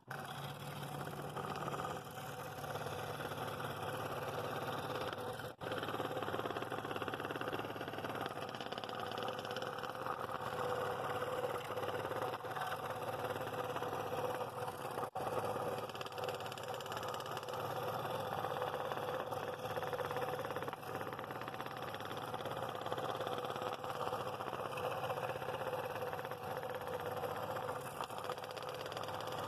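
Scroll saw running with a No. 7 Pegas modified-geometry blade, cutting a circle through a wooden board: a steady motor and blade chatter, broken only twice for a split second.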